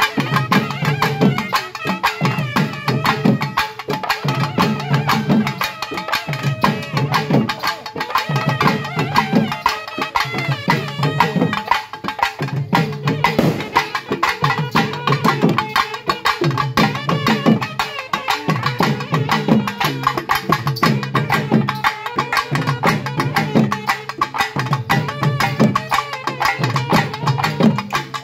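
Traditional festival drumming for a ritual dance: a fast, steady rhythm of drum strokes with a wavering melody line over it.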